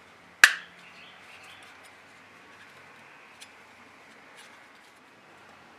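A single sharp plastic click about half a second in, as the retaining tabs of the rear window switch module snap down into the console housing, then a few faint ticks of plastic parts being handled.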